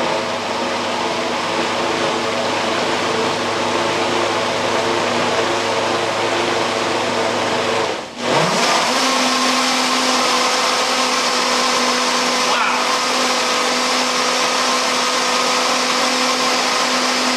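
Waring MX1200XTX 3.5-horsepower variable-speed blender running at high speed, puréeing a thick batch of hummus. About eight seconds in, the motor briefly drops away and spins straight back up to a higher, steadier pitch.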